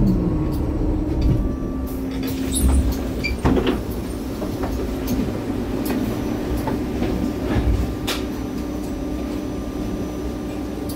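Inside a 2017 MAN Lion's City Hybrid (A37) city bus: a steady hum over a low rumble, with scattered clicks and knocks of interior fittings, a cluster of them about two and a half to three and a half seconds in and another near eight seconds.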